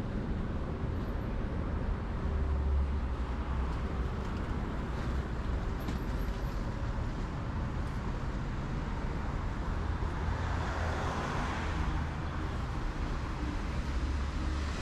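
Road traffic on a busy city street: cars passing with a steady low rumble and tyre hiss, one vehicle passing close about ten seconds in.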